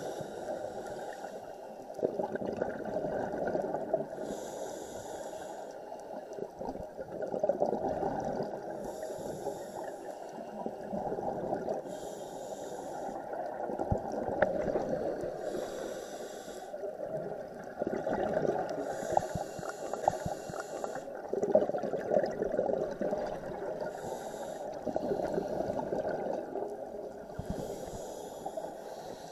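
A scuba diver breathing through a regulator, recorded underwater: a hissing inhale about every three to four seconds, with muffled bubbling exhales in between.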